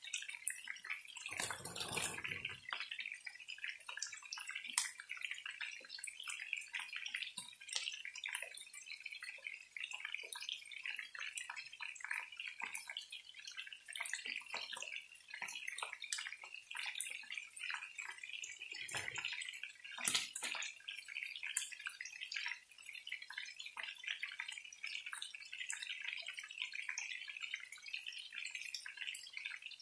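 Marinated chicken pieces frying in oil in a pan, a steady sizzle full of small crackles and pops. A louder burst lasting about a second comes near the start, and a couple of sharper pops come later.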